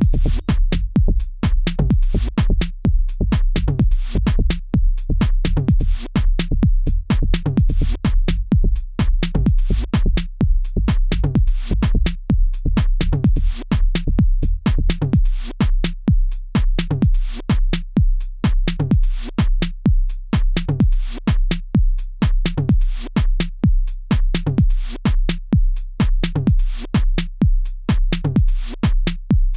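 Electronic dance music with a steady drum-machine beat and a deep bass line.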